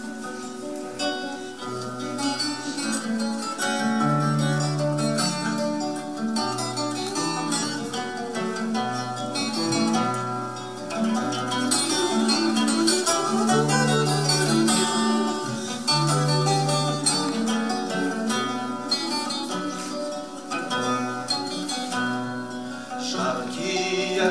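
Acoustic guitars, a steel-string and a nylon-string classical guitar, strummed together in a lively instrumental passage over a moving bass line.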